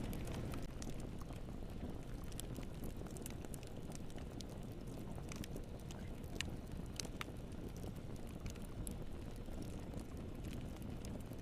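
Wood fire burning in a fireplace, a steady low rumble of flames with irregular sharp crackles and pops scattered throughout.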